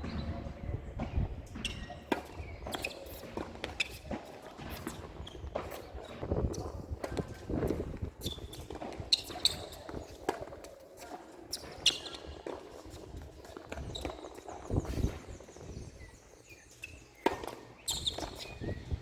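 Tennis play on a court: scattered ball bounces and hits and footsteps, irregularly spaced, with a few short high chirps.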